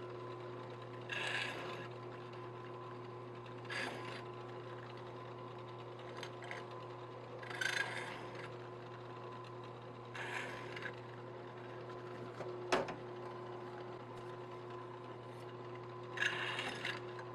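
Drill press motor running steadily while a twist drill is fed into an aluminium channel to enlarge holes, with about six short bouts of cutting noise as the bit bites through the metal and a sharp click about 13 seconds in.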